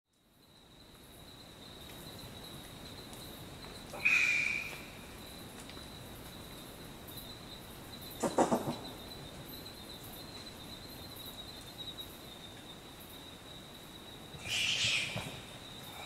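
Short-eared brushtail possum (bobuck) calling three times: a wheezy shriek about four seconds in, a quick run of staccato coughs about halfway, and another longer wheezy shriek near the end. A steady high tone runs underneath.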